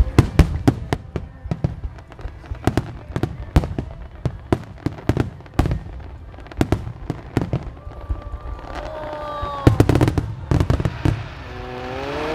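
Wide star mine fireworks barrage: a rapid string of sharp bursts and bangs, several a second, keeping on without a break.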